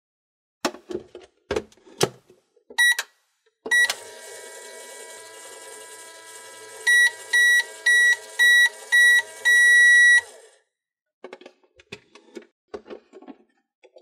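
Toy microwave oven: a few plastic clicks of its door, two short button beeps, then its running hum for about six seconds, ending in a run of beeps, five short and one longer, as the cycle finishes. Faint plastic clicks follow near the end.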